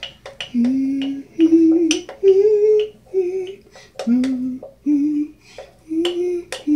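A girl humming a slow tune of about eight held notes, with a spoon clicking against the bowl between them as she stirs a cornstarch and dish-soap slime mixture.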